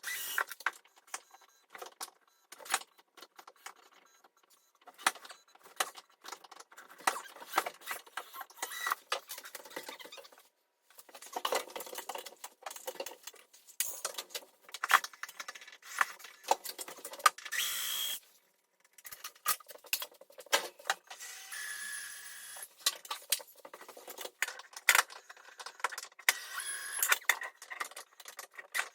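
Irregular knocks, clinks and rattles of upper kitchen cabinets being taken down by hand, with a scrape about two-thirds of the way through and a few short squeaks near the end.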